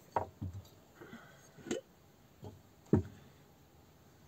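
A glass jar and tableware being handled on a small tabletop: about six separate light knocks and clinks, the loudest about three seconds in.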